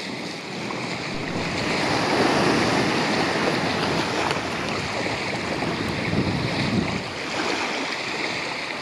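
Sea waves washing and breaking, with wind rushing over the microphone; a steady wash of noise that swells a little through the middle.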